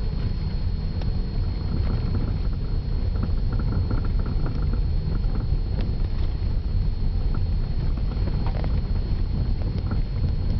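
Steady low rumble of a Toyota Corolla on the move, heard from inside the cabin, with a few faint light taps now and then.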